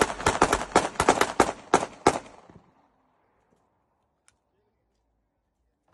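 A rapid string of gunshots, roughly a dozen sharp reports at about five or six a second, stopping about two seconds in.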